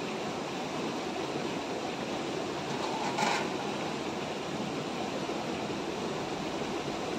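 Steady rushing hiss of a shallow stream over rocks together with a portable gas stove burning under a pan. About three seconds in, a brief sharp metallic clink as a steel pan lid is set down on the stones.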